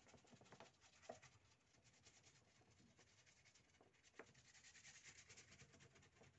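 Faint, quick scratching of a paintbrush's bristles rubbing acrylic paint over a textured painted surface, many short strokes in a row, with a light tap about a second in and another near four seconds.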